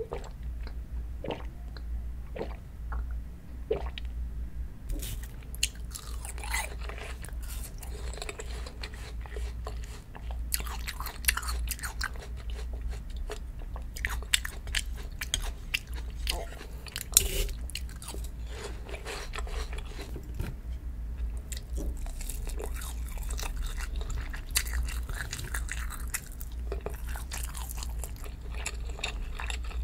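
Close-miked mouth sounds of a person chewing food, dense clusters of small clicks and crunches with short pauses, after a few isolated clicks in the first seconds; a steady low hum runs underneath.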